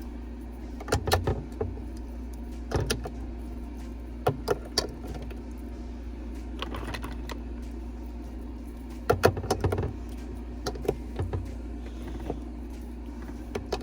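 Small plastic eyeshadow pots clicking and clacking as they are set into a makeup organizer: scattered sharp taps, with a quick run of them about nine seconds in, over a steady low hum.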